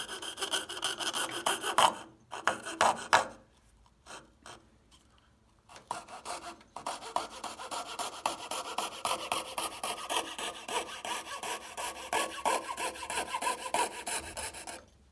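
Coping saw cutting a curve through MDF clamped in a vise, with quick back-and-forth rasping strokes. The sawing stops for a few seconds with only a couple of strokes about three seconds in, then picks up again at a steady rhythm.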